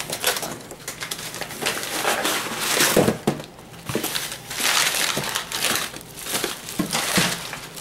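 Crumpled brown kraft packing paper rustling and crinkling as it is pulled out of a cardboard shipping box and unwrapped from the contents, with a plastic bag crinkling toward the end. It comes in uneven bursts of crackling, loudest about three and five seconds in.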